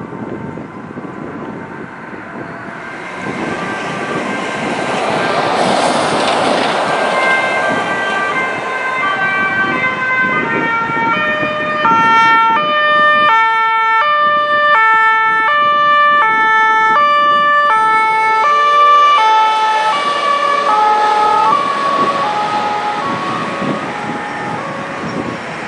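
An ambulance's German two-tone siren alternating between two pitches. It grows louder as the ambulance approaches, is loudest as it passes, then fades as it drives away, over the noise of road traffic.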